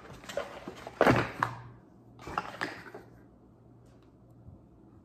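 Handling noise as a perfume bottle and sample vial are taken out of their packaging: a loud thunk about a second in, a smaller knock at about two and a half seconds, then quiet room tone.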